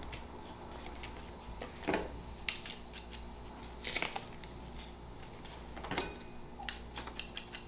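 Metal hand-held garlic press crushing fresh garlic cloves: scattered short clicks and scrapes of the metal handles and a knife against the press.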